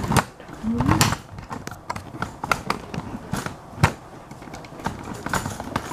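Scattered, irregular light clicks and knocks, with sharper ones about a second in and near four seconds in.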